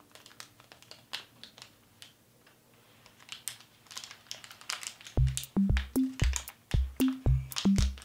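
Light crinkling and ticking of a small holographic plastic sachet being picked and torn open by hand. About five seconds in, background music with a bouncy bass line, about two notes a second, comes in and is the loudest sound.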